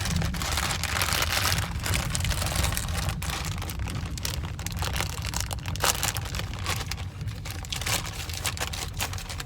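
Crinkling and crackling of a potato chip bag being handled and opened, a dense, continuous run of rustles.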